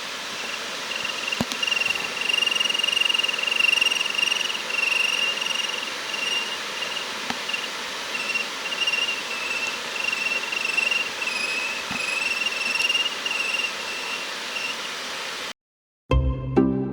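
Sharp KC-Z80 humidifying air purifier running, its fan airflow hissing steadily under a high, thin squeal that wavers a little in pitch and loudness. This is the abnormal squealing noise the unit has developed. The sound cuts off suddenly near the end, and music starts.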